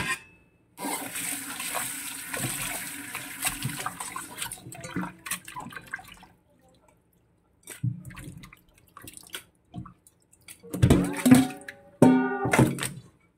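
Water running and splashing into a stainless steel bowl as frog meat is rinsed and rubbed by hand in a kitchen sink, then scattered light clicks and clinks of the bowl. Near the end come two short, loud pitched sounds.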